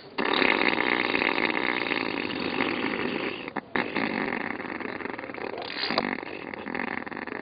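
A long, drawn-out, raspy fart that breaks off briefly about three and a half seconds in, then carries on.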